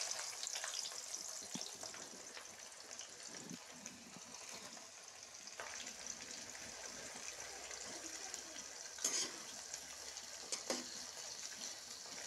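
Sliced onions frying in hot oil in a steel kadhai, a steady faint sizzle, with a couple of short scrapes of the metal spatula on the pan near the end.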